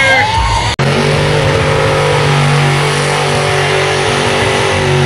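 Mud truck's engine held at high, steady revs, loud, over a dense hiss. It cuts in suddenly about a second in, replacing music with singing.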